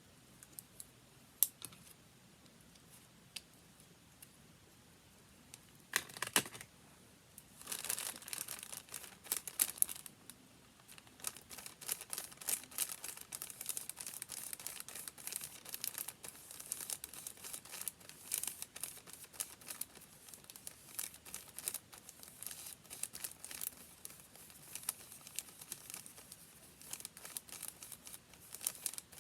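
Paper being handled and crinkled: a few scattered ticks, a short rustle about six seconds in, then continuous close-up crinkling and crackling from about eight seconds on.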